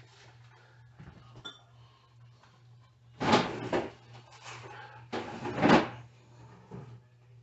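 Kitchen handling noises: two short rustling or scraping bursts a couple of seconds apart, with a few fainter knocks, over a steady low hum.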